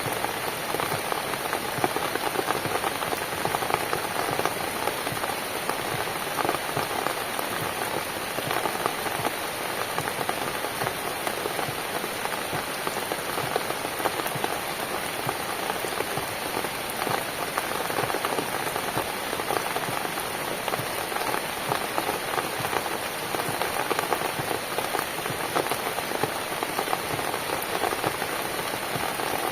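Steady rain falling, a dense, even patter of many individual drops that holds without a break.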